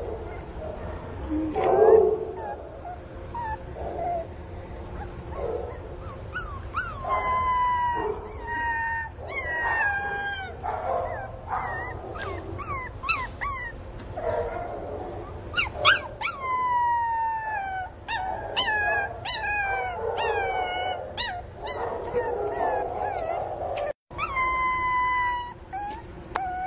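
Pinscher puppy crying for its missing mother: repeated high-pitched whines and short howls, each falling in pitch, sparse at first and then coming one after another from about six seconds in.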